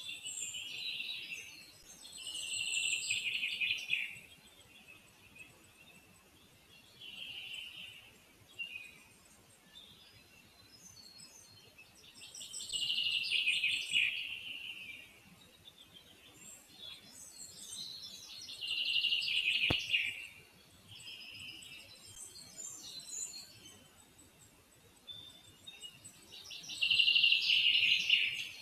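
A small forest songbird singing a repeated song phrase that falls in pitch, about every five to six seconds, with fainter high chirps from other birds between.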